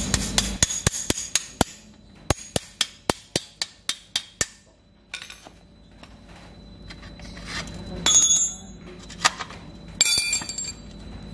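Hand tools working on a motorcycle frame: two runs of quick, evenly spaced sharp metal taps, then metal clinking with a short ring twice near the end.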